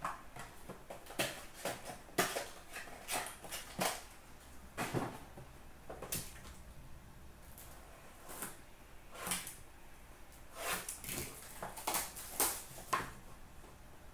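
Trading cards and a cardboard card box handled on a glass counter: a run of short, scattered taps, slides and rustles as cards are set down and the box is picked up and opened.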